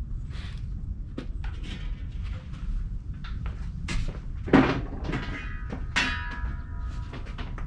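Steel lid of a Weber charcoal kettle grill being lifted off and handled: light knocks, then two loud metal clanks about four and a half and six seconds in, each with a short ring.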